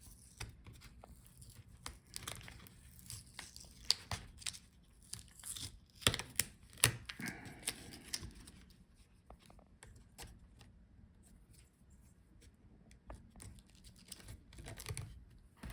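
Faint crinkling and tearing of a thin cover over a laptop's SSD being peeled back, with scattered small clicks from handling the parts.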